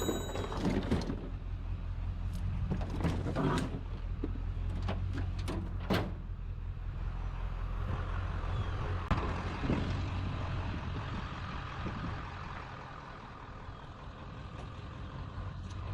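Truck engine running steadily, with a few sharp knocks and clatters in the first half; the engine hum drops away about three quarters of the way through.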